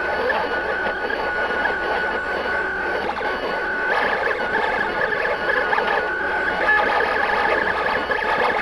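Vinyl cutter running, its motors whining as it cuts a decal from white vinyl. A steady high whine breaks into short, shifting pitches about four seconds in as the cutting moves change.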